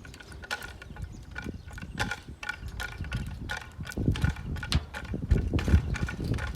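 Yale hand winch ratchet clicking as it is cranked, about three sharp ringing clicks a second, hauling a log. Heavier low thuds and rumbling join in during the second half.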